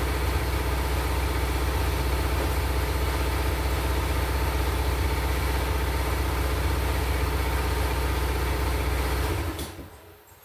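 Shop air compressor running steadily with a low hum, then shut off about nine and a half seconds in, ending with a click.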